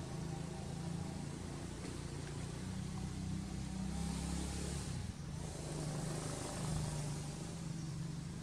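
Steady low hum of a running engine, with a short rise of hiss about four seconds in.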